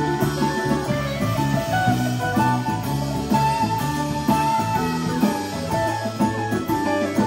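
Live band playing an instrumental passage: electric guitar lines over keyboard, bass and drums with congas, with a steady beat.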